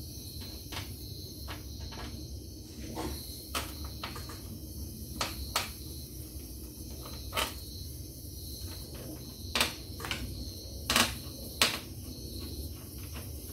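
Scattered light clicks and taps of hand work on an LCD TV's chassis as screws are taken out to free the T-CON board, irregularly spaced, with a few louder clicks near the end.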